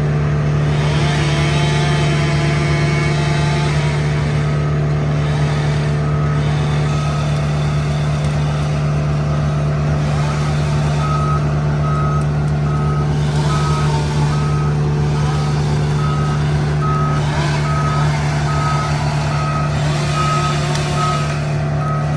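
A heavy vehicle's engine running steadily. About halfway through, its reversing alarm starts, giving evenly spaced high beeps a little faster than one a second as the vehicle backs up.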